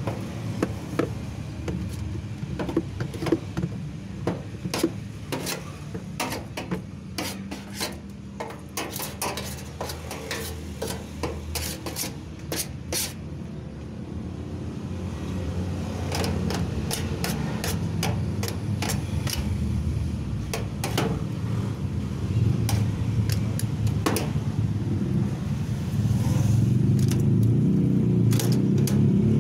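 Rapid scraping and tapping on metal as caked dust is cleaned off the dryer's drum parts, over a steady low motor rumble. The clicks thin out after about 14 s, and the rumble grows louder after about 16 s and again after about 26 s.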